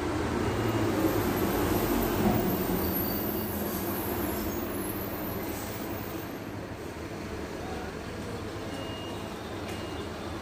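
Steady low rumble of a heavy passing vehicle heard from indoors, slowly fading away.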